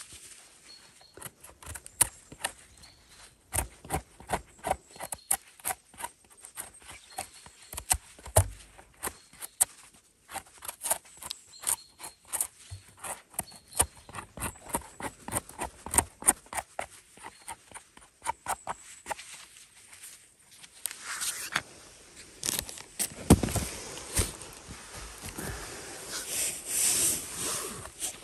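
Dry leaf litter and twigs crackling and crunching underfoot on a forest floor, in irregular clusters of sharp snaps, with louder rustling swells near the end.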